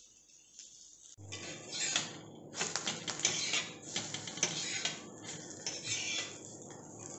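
A steel spatula scraping and pushing across a flat metal tawa as an omelette is worked on it, in a run of short scrapes that starts about a second in.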